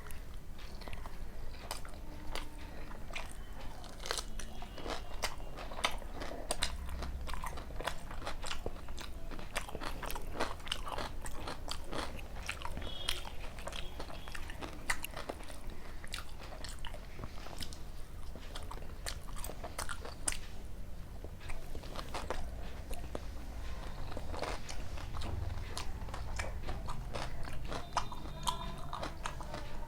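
Close-up eating sounds: a person biting and chewing soft luchi with chicken curry and raw onion, with many irregular wet mouth clicks, smacks and occasional crunches.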